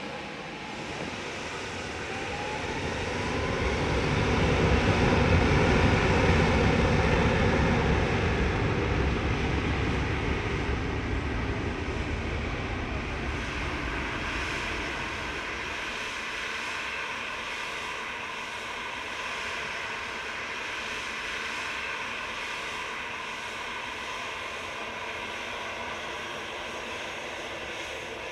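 Twin jet engines of a British Airways Boeing 777-200 spooling up for takeoff: a rising whine over a deep rumble that swells to its loudest about five seconds in, then fades slowly to a steady hiss as the airliner rolls away down the runway.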